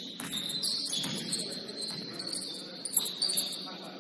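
Basketball game on a hardwood court: many short, high-pitched sneaker squeaks, with a couple of sharp thumps from the ball or players' feet, over low gym noise.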